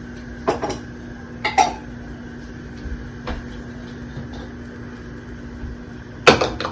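A few sharp clinks and knocks of kitchen utensils against cookware, spaced out, with the loudest pair near the end, over a steady low hum.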